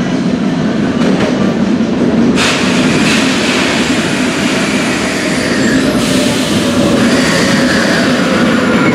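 Rome Metro Line A train running into the station and slowing: a steady rumble of wheels on rail, with a whine that falls slowly in pitch as it brakes. A brighter hiss comes in suddenly about two seconds in, and again about six seconds in.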